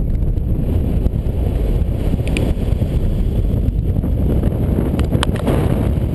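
Strong wind rushing over the camera microphone as a tandem paraglider turns fast in 360s, a steady low buffeting, with a few brief high ticks about two and five seconds in.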